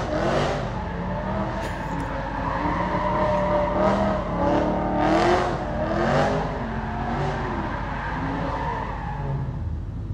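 BMW E90 M3's V8 with its primary catalytic converters removed, a custom X-pipe and no rear muffler, revving hard in a string of pulls. Its pitch climbs and drops with each one, loud and raspy.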